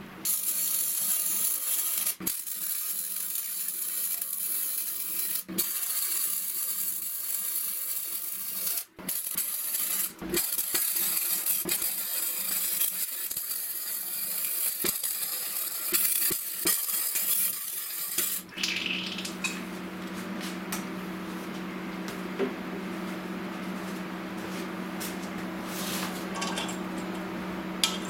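MIG welder arc crackling and sizzling as a steel strip is welded, in runs with a few short breaks, stopping about two-thirds of the way through. A steady low hum follows, with a few light metal clinks near the end as steel tools are set into the welded holder.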